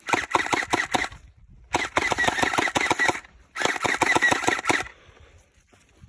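Electric gel blaster firing full-auto in three rapid bursts, each a quick string of sharp shots over the whirr of its motor.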